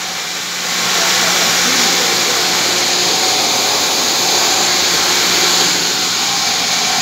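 Electric motors of vertical water pumps running, a loud, steady whir with a low hum, getting louder about a second in.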